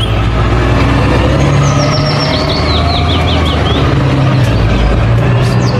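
Concrete mixer truck's diesel engine running as it drives along the road, its engine note shifting up and down. A bird chirps a quick run of notes about two seconds in.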